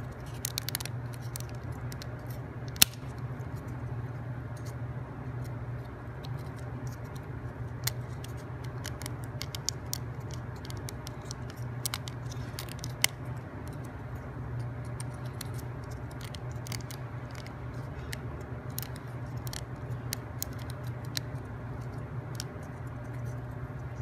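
Scattered light clicks and taps of thin plywood parts being handled and pushed together as the small wooden code rings of a wooden combination-lock model are fitted onto its shaft, with two sharper clicks, about three seconds in and near the middle. A steady low hum lies underneath.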